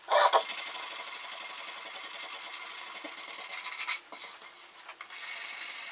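Sandpaper rubbing back and forth in quick strokes on the wooden body of an electric guitar, along the edge of the binding, making a dry hiss. The hiss drops briefly about four seconds in, then resumes.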